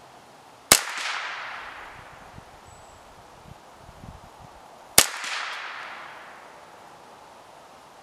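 Two shots from a Ruger 10/22 .22 LR semi-automatic rifle, about four seconds apart, each followed by an echo that fades over about a second and a half. A few faint low knocks come between the shots.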